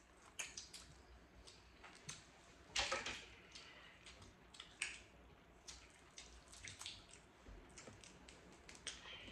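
Wet eating sounds from a seafood boil: chewing and sucking on buttery crab and shrimp, with scattered sharp clicks and small cracks of shells being handled, the loudest just under three seconds in.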